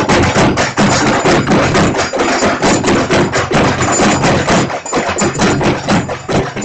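Loud, fast drumming, struck several times a second in a steady, unbroken rhythm.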